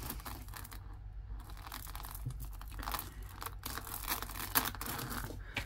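Strands of faux pearls and beads clicking and rattling against each other in irregular small clicks as the tangled necklaces are handled and pulled apart.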